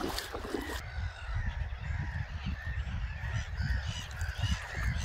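Birds calling over and over, many short calls in quick succession, over a steady low rumble.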